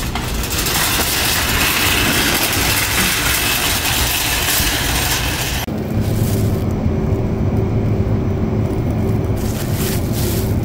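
Metal shopping cart rattling loudly as it is pushed over brick pavers. About five and a half seconds in it rolls onto a smooth floor, the rattle dulls and a steady low hum comes in.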